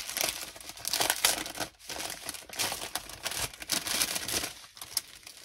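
Clear plastic packaging crinkling as it is handled, in irregular bursts, loudest about a second in.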